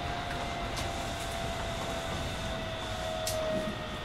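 Shin-Keisei 8900 series electric train with a Mitsubishi IGBT inverter, heard from inside the car while running. A single thin whine from the inverter and traction motors falls slowly in pitch over the steady rolling noise of wheels on rail, the sign of the train slowing. A faint tick about a second in and a short hiss near the end.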